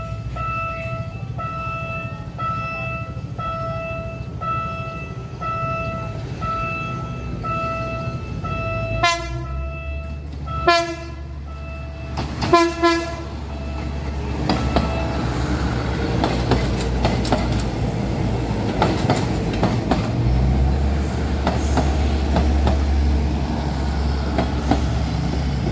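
Level-crossing warning beeper sounding steadily, about three beeps every two seconds, then several short blasts of the train horn as a Philippine National Railways diesel commuter train approaches. The train then passes close by, wheels clattering over the rail joints over a low diesel drone.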